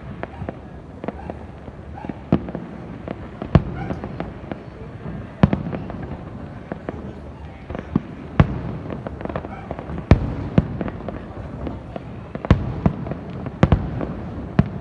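New Year aerial fireworks display: about nine sharp bangs of bursting shells at irregular intervals, several close together near the end, over a continuous rumble of more distant bursts.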